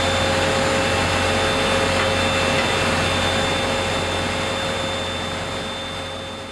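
Steady machine noise: a continuous hiss with a low hum and a few steady whining tones, fading away near the end.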